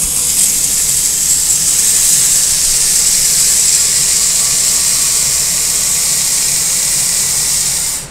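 A loud, steady, high-pitched hiss that cuts off abruptly near the end.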